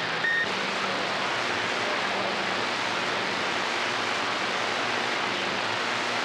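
CB radio receiver on channel 28: a brief high beep as a transmission ends, then steady static hiss from the open channel, with a faint low hum underneath.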